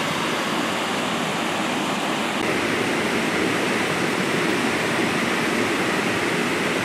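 Creek water rushing steadily over rocks, a little louder from about two and a half seconds in.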